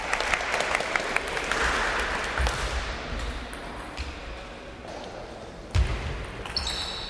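Table tennis doubles rally: quick sharp clicks of the celluloid ball striking bats and the table, thinning out after a few seconds, with one heavy thump about six seconds in.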